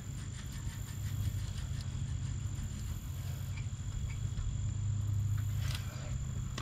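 A steady low hum of background noise with a thin, faint high-pitched whine over it, and a few light clicks near the end.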